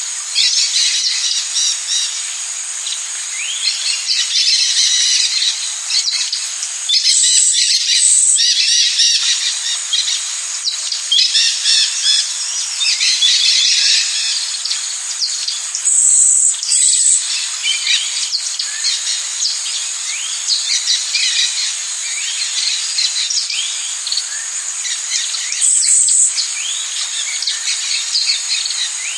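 Rainforest ambience: a steady high insect drone under a dense mix of bird calls and chirps. A louder insect buzz swells about every nine or ten seconds.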